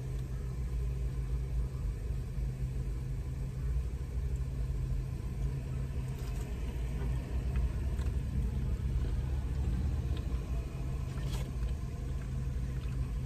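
Steady low hum of a car's engine idling, heard from inside the cabin, with a few faint clicks.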